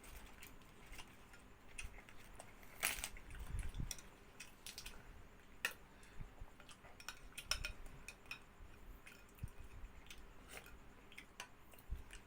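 Cutlery clinking against dishes and chewing as someone eats: scattered light clicks and taps, the loudest about three seconds in.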